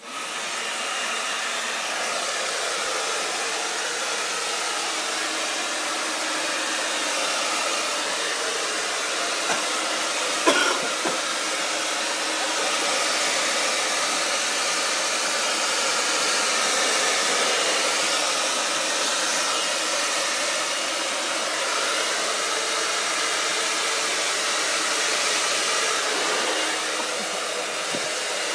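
Hand-held hair dryer on its cold setting, switched on and running steadily as it blows dust out of an open desktop PC case. One brief, sharp, louder sound cuts in about ten seconds in.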